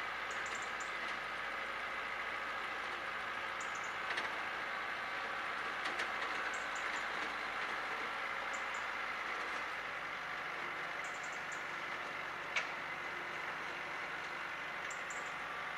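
Distant farm tractor's engine running steadily as it works across a tilled field. Faint short high chirps come now and then, along with a few sharp clicks, the sharpest about twelve seconds in.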